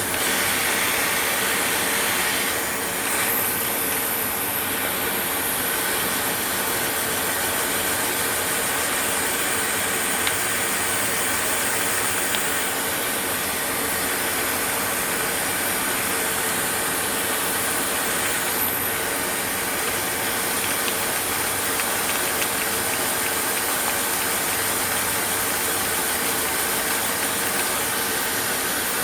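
Steady sanding of the underside of a chromatic harmonica slider with fine sandpaper, a continuous gritty hiss without pauses.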